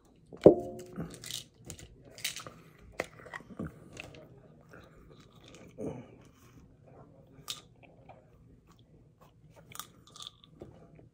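Close-up chewing and crunching of food, with sharp crunchy bites scattered irregularly through. A short voiced sound from the eater about half a second in is the loudest moment.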